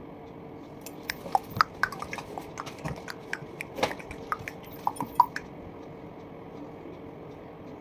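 An irregular run of small, sharp clicks and taps for a few seconds, stopping a couple of seconds before the end, over a faint steady hum.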